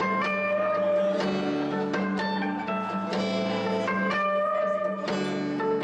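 Background music: plucked guitar notes, a new one about every second, over a held low note.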